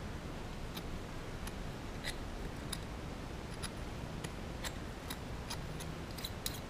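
Hand deburring tool's blade scraping the edges of freshly milled slots in an aluminium dirt-bike piston: light, irregular ticks and scrapes, two or three a second, over a faint steady hum.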